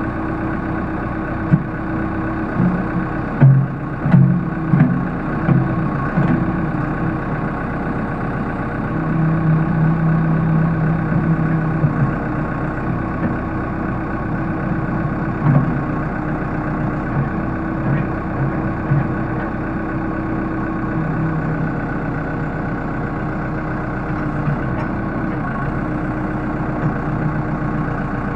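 Case 580L backhoe's diesel engine running steadily, with a few sharp clunks in the first several seconds and a brief swell in the engine note about ten seconds in.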